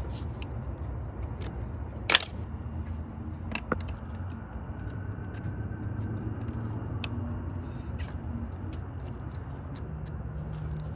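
Sharp clicks and knocks from handling the fuel filter and its clips, the loudest about two seconds in and a smaller pair a second and a half later, over a steady low rumble.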